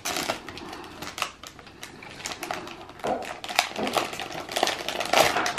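A foil blind-bag toy packet crinkling and tearing as it is pulled open by hand: a run of irregular crackles and rustles.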